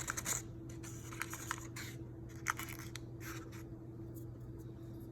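Irregular crisp crunching and crackling, mostly in the first three seconds, of a chicken pot pie's crust being broken into, over a steady low hum.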